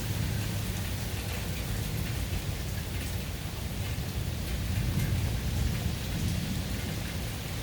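Rain falling steadily, with a low rumble of thunder underneath that swells about five seconds in.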